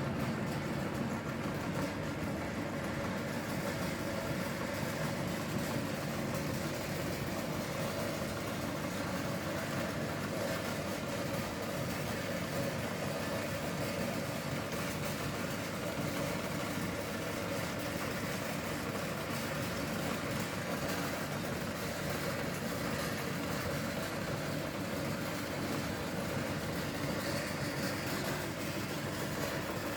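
Meat grinder's motor running steadily as it grinds spaghetti, starting abruptly and holding an even hum throughout.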